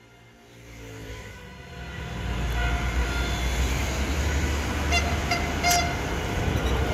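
A city bus approaching and pulling up close. Its engine rumble builds from quiet over the first two seconds, then stays steady and loud.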